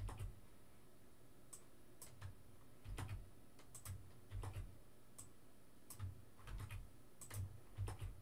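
Computer keyboard being typed on, faint, in short irregular runs of keystrokes with small desk thumps under them.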